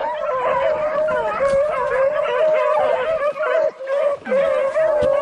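Pack of beagles baying together in a continuous chorus of overlapping howls.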